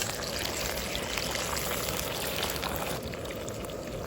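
Liquid pouring or running: a steady rushing hiss that thins out about three seconds in.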